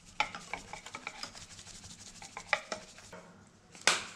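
Stainless-steel wire whisk stirring chocolate powder into runny cake batter in a bowl, its wires clicking irregularly against the bowl's side, with a louder knock near the end.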